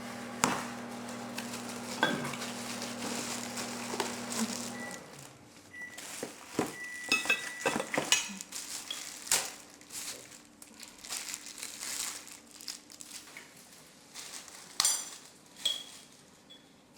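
Metal fireplace-tool parts clinking and knocking together, with packing paper rustling and crinkling as they are unpacked. A steady low hum runs underneath for about the first five seconds, then stops.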